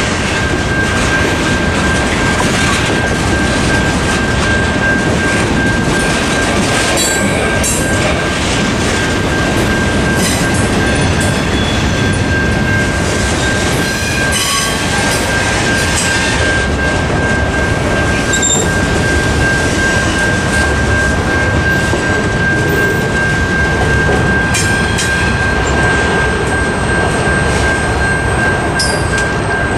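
Freight cars of a Norfolk Southern mixed freight rolling over a grade crossing, with steady rumble, clatter and brief wheel squeals; the last car passes near the end. Throughout, a Safetran Type 3 electronic crossing bell rings as a steady, high repeating tone.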